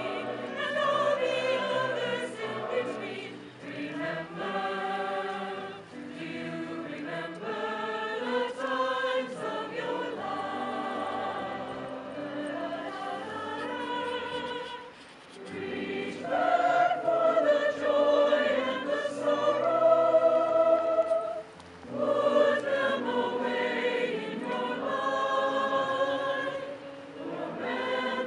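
A large mixed choir of men's and women's voices singing together in harmony, in long phrases broken by brief pauses for breath about 15 and 21 seconds in.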